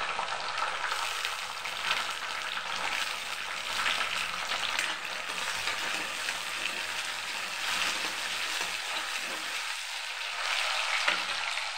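Sliced shallots and tomato pieces sizzling and crackling in hot oil in a steel kadai, stirred with a steel ladle.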